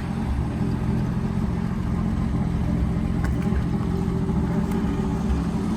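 1965 Ford Mustang's engine running steadily at a low, even idle, first started after ten years in a garage.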